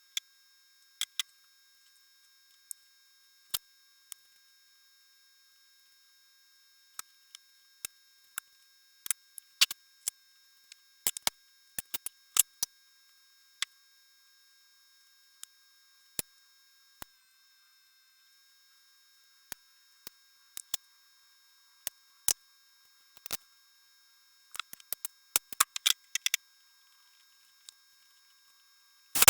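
Scattered sharp clicks and light taps with silence between them, bunched in a flurry around the middle and another near the end.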